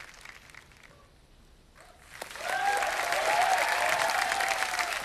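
Studio audience applause that swells up about two seconds in, after a short near-quiet pause, and keeps going.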